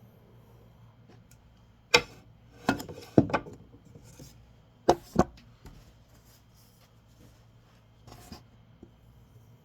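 A steel knife blade worked on a whetstone, giving a few sharp hard clacks in quick pairs and groups, with faint scraping between them and a softer knock near the end.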